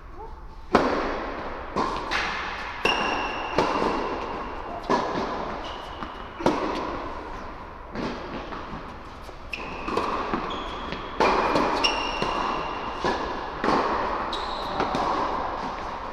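Tennis rally on an indoor court: sharp racket strokes and ball bounces about once a second, each echoing in the large hall.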